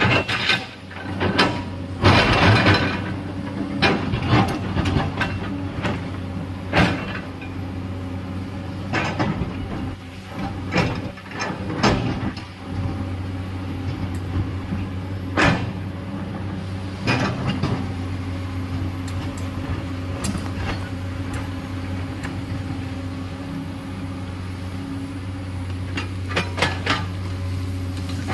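Excavator's diesel engine running steadily while it digs, with scattered sharp knocks and clanks, a cluster of them about two seconds in.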